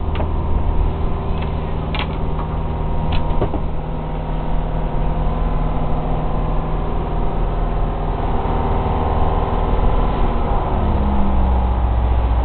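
A fishing boat's engine running steadily, with a few light knocks a couple of seconds in. About eleven seconds in the low drone gets louder.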